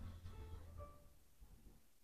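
Faint background music: a few soft plucked notes dying away, close to silence.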